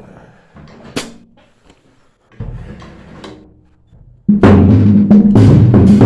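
Drum kit being tried out: a few light taps and one sharp hit about a second in, then a little past four seconds in the kit is played loudly with rapid strokes on the drums.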